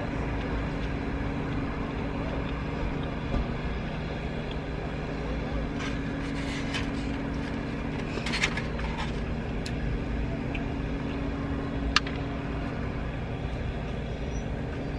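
Steady low engine hum with a cluster of crisp crunches about six to nine seconds in, as fried tortilla is chewed, and a single sharp click about twelve seconds in.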